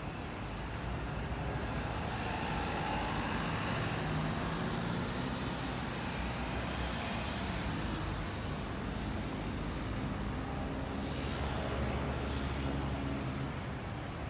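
Street traffic on a busy city road: cars and buses passing in a steady rumble, with one vehicle going by louder about eleven seconds in.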